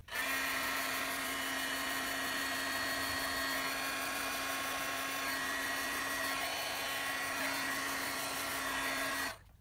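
Wagner electric heat gun running steadily, shrinking heat-shrink tubing over a plug-and-socket cable joint. It starts at once and cuts off suddenly about nine seconds in.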